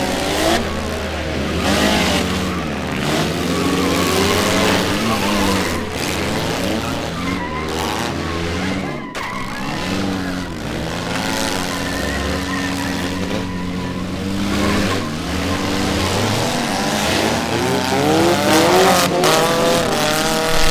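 Several four-cylinder demolition derby cars revving hard, their engines rising and falling in pitch over one another. Tyres spin and squeal, and a few sudden impacts come as the cars ram each other.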